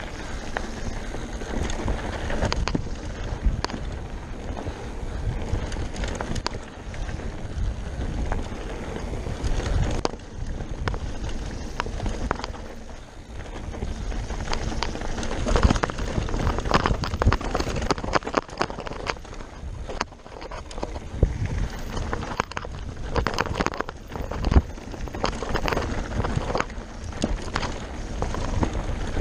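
Mountain bike descending a rough dirt singletrack at speed: tyres rumbling over the trail with frequent knocks and rattles from the bike, and wind buffeting the microphone.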